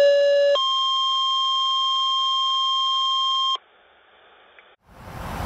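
Two-tone fire dispatch alert: a lower steady tone for about a second, then a higher tone held for about three seconds over a radio hiss, the sequence that sets off firefighters' pagers. A faint hiss follows, and near the end wind and street noise fade in.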